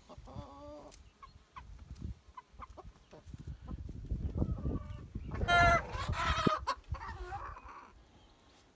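Young Leghorn and Wyandotte chickens clucking and calling, with short calls early on and a louder, drawn-out call about five and a half seconds in.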